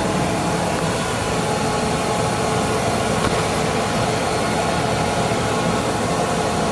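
Metal lathe running steadily, an even machine drone with a few constant tones and no change in speed.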